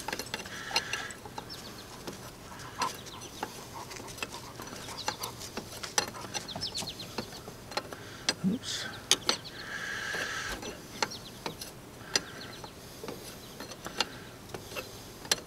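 Ratchet wrench clicking in short runs, with steel wrenches clinking on hydraulic hose fittings as they are tightened. About ten seconds in there is a brief squawk-like sound of about a second.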